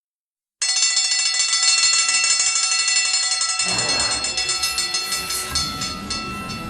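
Cartoon sound effect of a bell ringing rapidly and continuously, many high ringing tones with a fast rattle, starting suddenly about half a second in; a lower, noisier layer joins a little past halfway.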